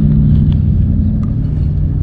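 Steady low rumble with a constant droning hum, like running machinery or an idling engine, with a couple of faint clicks.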